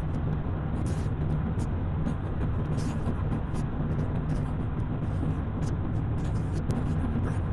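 A car driving along a road: steady engine hum and tyre and road noise.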